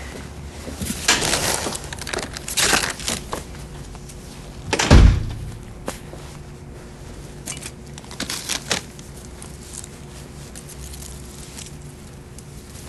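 Rustling and handling noises from a leather jacket as the wearer lifts and moves his arms, with one heavy thump about five seconds in.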